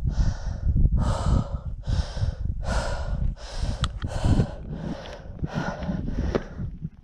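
A person panting hard from the effort of climbing a steep trail: quick, even breaths, a little more than one a second, over a low rumble.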